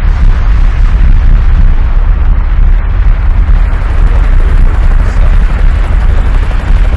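Loud, steady rumbling roar, deepest at the bottom with a hiss over it, unbroken and without separate bangs.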